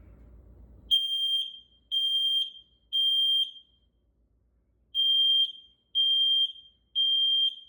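Smoke alarm sounding during a test: a high-pitched beep in the three-beep temporal pattern, three half-second beeps a second apart, a pause, then three more.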